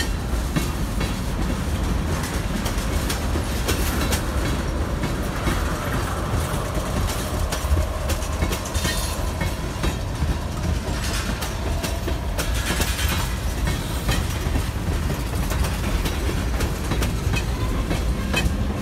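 CSX mixed freight train's cars rolling past on the rails. Their wheels click over the rail joints over a steady low rumble.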